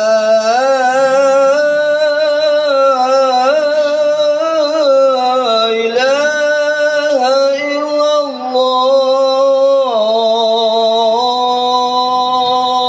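A man chanting into a hand microphone through the mosque's loudspeakers, in long held notes with ornamented turns, typical of a mosque call or recitation. He breaks off briefly for breath a few times.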